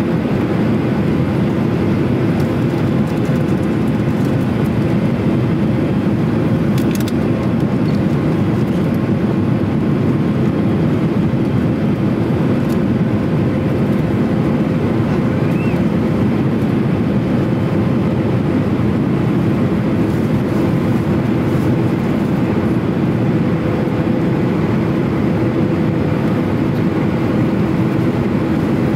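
Cabin noise inside a Boeing 737-800 descending on approach: the CFM56-7B turbofans' steady hum with a few constant tones over loud, even rushing airflow, heard at a window seat over the wing.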